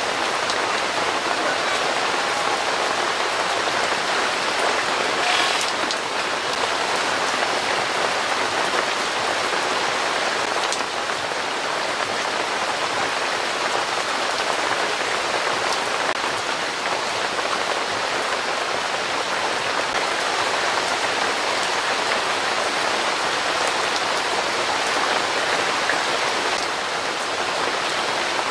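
Heavy downpour: dense, steady rain pouring onto wet asphalt and the roofs of parked cars.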